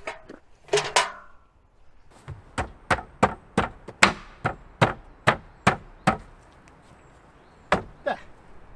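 A run of sharp knocks, about three a second for some four seconds, with a couple of knocks before it and one more near the end: something hard, likely wood, being struck repeatedly.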